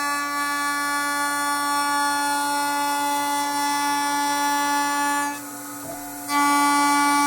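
CNC milling machine running the finishing pass with a 12 mm radius cutter: a steady, buzzing whine with many overtones. It drops back for about a second near the end, then returns louder.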